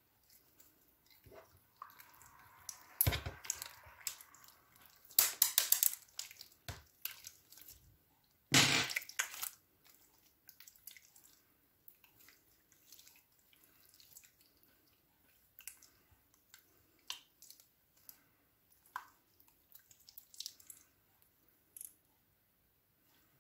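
Glossy clear slime being stretched and squished by hand, making wet, sticky clicks, pops and crackles. A few louder crackling bursts come in the first ten seconds, then only scattered small clicks.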